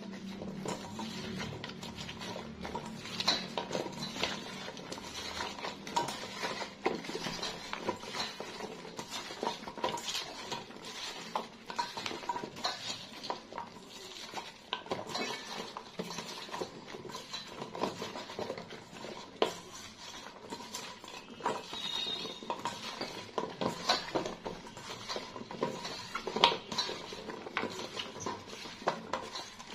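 Chopped pumpkin and green beans being tossed and mixed by hand in a stainless steel bowl, the pieces knocking and scraping against the metal in a steady run of irregular clicks and clatters.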